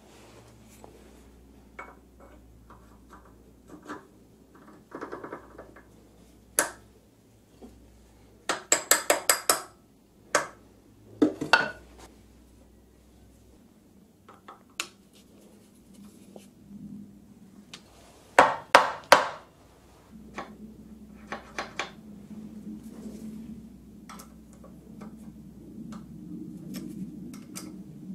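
Hand tools clinking and tapping on a steel lathe drive-centre attachment: scattered sharp metallic ticks, with a quick run of about six ringing strikes about nine seconds in, two more a little later, and three near the two-thirds mark.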